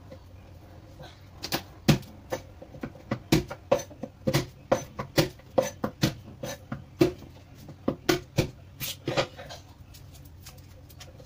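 Kitchen knife chopping garlic on a wooden cutting board: a run of sharp knocks, about two to three a second, starting about a second and a half in and stopping about nine seconds in.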